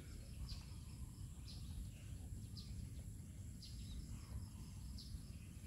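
Faint outdoor ambience: a short high chirp repeats about once a second, from a bird or an insect, over a steady high insect drone and a low rumble.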